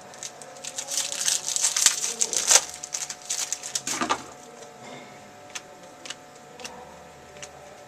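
Trading cards and their foil pack wrapper being handled: dense crinkling and rustling for about four seconds, then a few light clicks and taps as the cards are moved.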